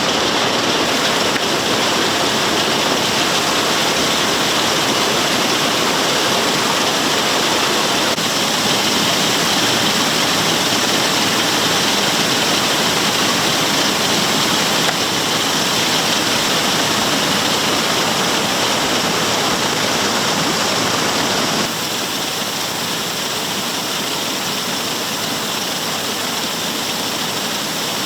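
Wheat pouring out of a semi trailer into a grain pit, with the pit augers and a large grain-bin auger running: a loud, steady rushing noise that drops somewhat in level about 22 seconds in.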